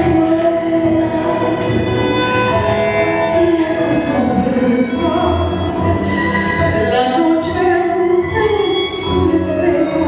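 A woman singing a tango into a microphone, amplified through the hall's sound system, over instrumental accompaniment, holding long sustained notes.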